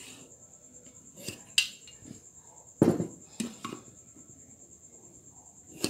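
A few scattered knocks and clicks of a steel try square and pencil being handled against a wooden bar on a workbench while lines are marked across it. The loudest knock comes about three seconds in.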